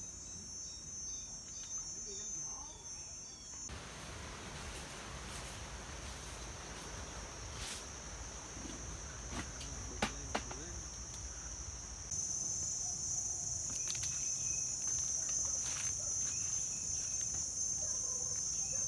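A steady, high-pitched shrilling of insects, louder from about twelve seconds in, with two sharp clicks near the middle.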